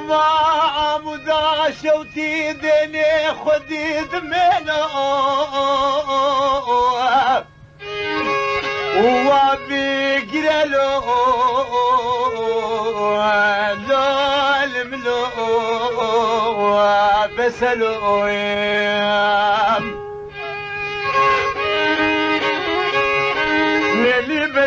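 Violin playing an ornamented instrumental melody with vibrato over a low held drone, in a Kurdish folk-song accompaniment between sung passages. It breaks off for a moment about seven seconds in, and again briefly near the end.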